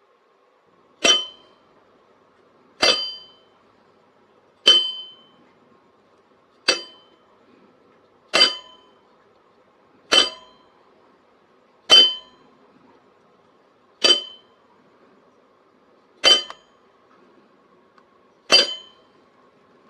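A sharp metallic clink, ringing briefly, repeated ten times at roughly two-second intervals over a faint steady hum.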